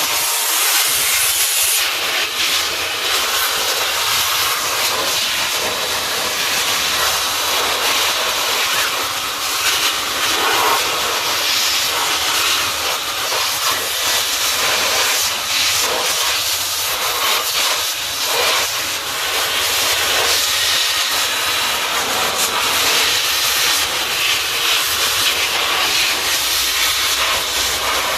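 Handheld electric cleaning tool running steadily, a constant loud rush of air, used to clean dust out of a solar power inverter.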